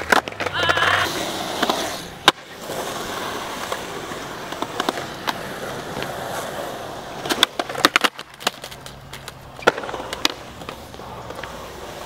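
Skateboard wheels rolling on a concrete skatepark, broken by several sharp clacks of the board hitting the concrete, the loudest about two seconds in and a cluster of them between seven and ten seconds in.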